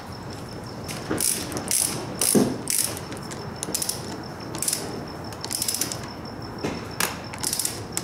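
Ratchet wrench clicking in about eight short bursts of rapid clicks, tightening the clamp bolts of a clutch lever mount on an ATV handlebar.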